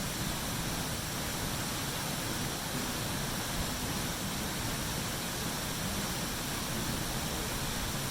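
A waterfall pouring steadily into its pool: an even, unbroken rush of falling water.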